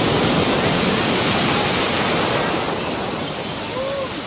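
Tsunami floodwater rushing, a loud steady noise that eases a little after about two and a half seconds.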